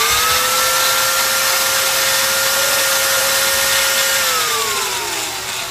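DCA electric angle grinder running free, fitted with new 607 and 608 bearings: a steady motor whine that settles at full speed, then falls away as it is switched off about four seconds in and winds down. The running sound is smooth, with the vibration from the old worn bearing mostly gone.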